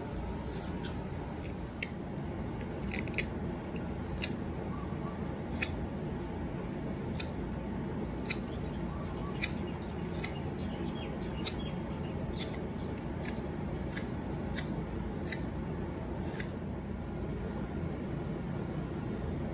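ESEE 4 fixed-blade knife carving a pine spoon blank: short, sharp slicing snicks, roughly one a second, that stop near the end. A steady low rumble runs underneath.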